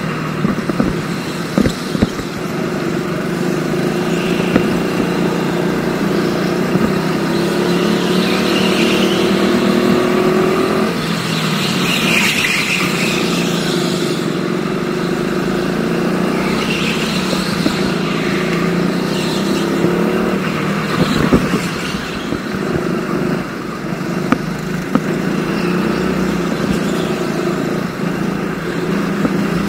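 Go-kart engine running on track, its pitch climbing steadily for several seconds, dropping about eleven seconds in, then rising and easing off again as the kart accelerates and brakes.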